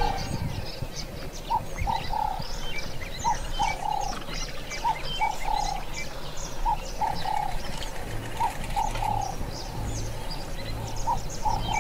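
Birds calling: a dove-like cooing phrase of three short notes repeated every one and a half to two seconds, with thin high chirps from other birds over it.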